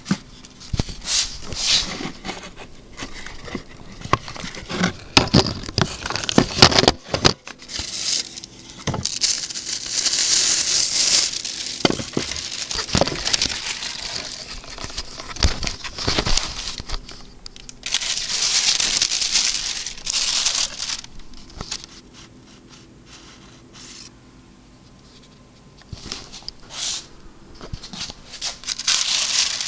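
Crinkling and rustling of plastic and paper being handled, with scattered knocks and clicks. It drops to a faint hush for a few seconds about two-thirds of the way through, then the rustling picks up again.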